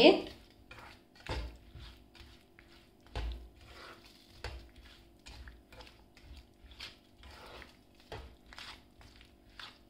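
A black slotted spatula stirring chopped strawberries and sugar in a non-stick frying pan, giving soft scrapes and taps against the pan about once a second, with a few louder knocks. A faint steady hum runs beneath.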